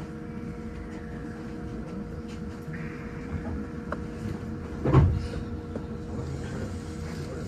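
Inside a moving commuter train: the steady rumble of the car running on the rails, with a faint steady hum. One sharp, loud knock about five seconds in.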